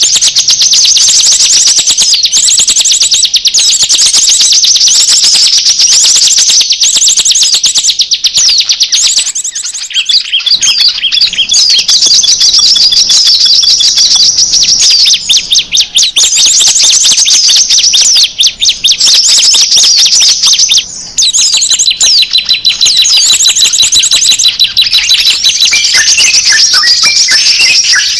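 Small-bird lure call: loud, dense, rapid high-pitched chirping and twittering, almost unbroken, with two brief drops at about ten and twenty-one seconds in.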